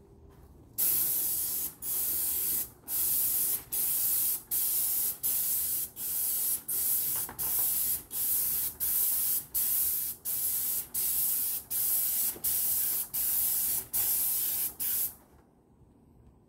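Paint spray gun hissing in about twenty short bursts, roughly one and a half a second, as the trigger is pulled and let go on each pass of exterior wall paint. The spraying stops about fifteen seconds in.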